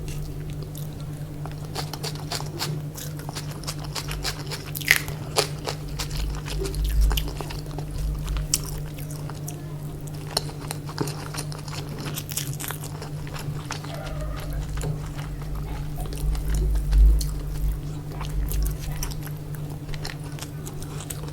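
Close-miked eating sounds: chewing and biting of food, with many small scattered clicks and crunches over a steady low hum.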